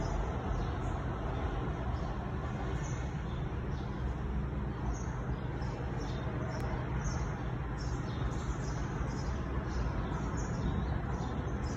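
A small bird chirping, short high notes repeated every second or so, over a steady low background rumble.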